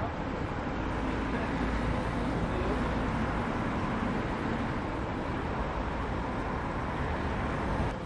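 Steady urban street ambience: a continuous rumble of traffic and city noise.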